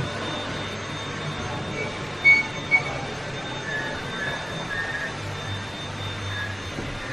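Shop room tone: a steady low hum, with two short high beeps close together about two seconds in.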